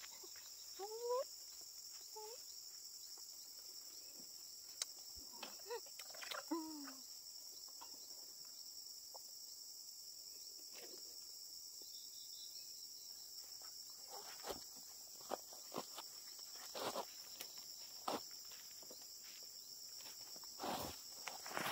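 Steady, high-pitched chorus of insects such as cicadas or crickets. A few short, curving calls come in the first seven seconds, and scattered clicks and rustles follow in the second half.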